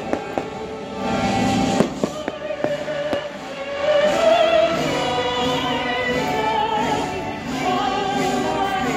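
Live orchestral music with singing voices, the held notes wavering with vibrato. Sharp firework bangs and crackles go off over the music during roughly the first three seconds.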